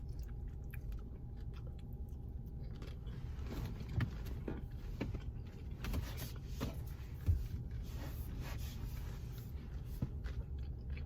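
Close-miked chewing of a shrimp bowl, with wet mouth sounds and a few sharper bites or clicks about 4 and 7 seconds in, over a steady low hum.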